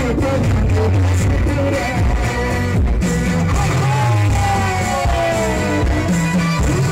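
Loud live Pahari nati folk dance music through PA speakers: a male singer's voice over an electronic keyboard and a steady, bass-heavy beat.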